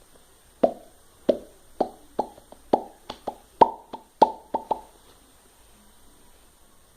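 Mouth-made popping noise: a quick, uneven series of about a dozen hollow plops made by hitting the lips, each with a short pitched ring, ending about five seconds in.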